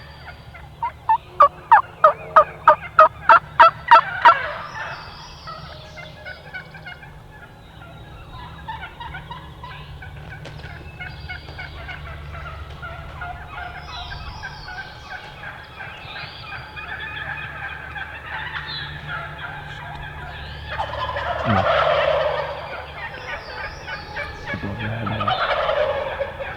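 Wild turkeys calling: a loud run of about a dozen evenly spaced yelps near the start, quieter calls through the middle, then two gobbles near the end.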